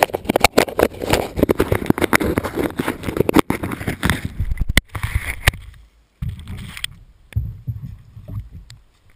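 Close handling noise on the camera's microphone: dense crackling, scraping and clicking as the camera is picked up and rubbed about. Then, from about six seconds in, scattered dull thumps of footsteps as it is carried across the grass.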